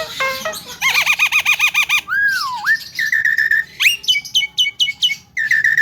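Javan myna (jalak kebo) giving a varied run of mimicked whistles and squawks. It opens with a fast wavering trill, then a swooping rise-and-fall whistle and a held whistled note. About four seconds in comes a quick series of about six short falling notes, then another held note.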